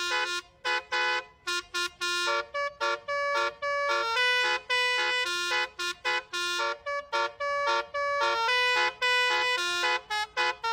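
Bus telolet basuri musical horn playing a quick tune of short notes that keep changing pitch, with brief gaps between them.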